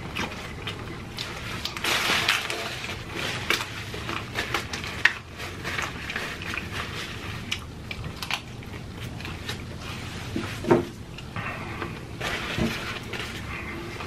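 Hard taco shells crunching as they are bitten and chewed, a run of irregular crisp crackles with two sharper snaps, about five seconds in and about eleven seconds in.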